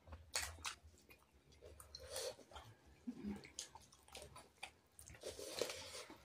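Faint eating sounds: people chewing mouthfuls of rice and pork eaten by hand, a scatter of short clicks and wet mouth noises.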